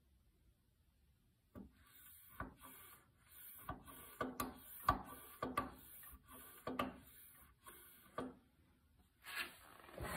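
Rhythmic rubbing strokes, about two a second, from the brake pedal linkage and push rod being worked at a freshly installed dual-chamber brake master cylinder on a Jeep CJ2A. They start about a second and a half in, stop near eight seconds, and come once more near the end.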